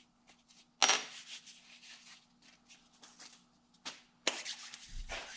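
A rag scrubbing and wiping a small metal part, the broken recliner lever coupler made of 5/8-inch square tubing, cleaning it with alcohol: irregular rubbing strokes, a sharp loud one about a second in and a busier stretch near the end with a low bump. A faint steady hum sits underneath.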